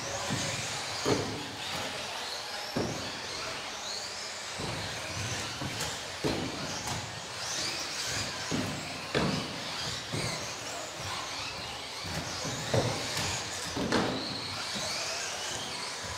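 Several electric 4WD RC buggies racing on an indoor track: their motors whine, wavering up and down in pitch as they accelerate and brake, with sharp knocks every second or two from the cars hitting the track, in a reverberant hall.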